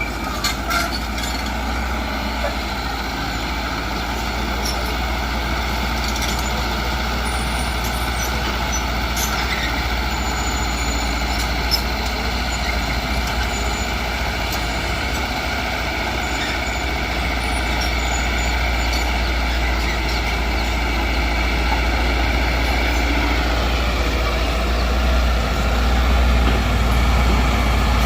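Heavy earthmoving machine's diesel engine running steadily under work, growing louder near the end, with a few short metallic clanks.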